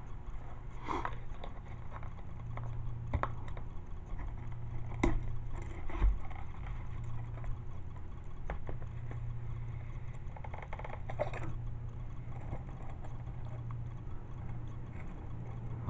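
Light handling noise from a sheathed Bowie knife being turned over in the hand: soft rubbing of the leather sheath and strap, with a few small clicks and knocks spread through, over a steady low hum.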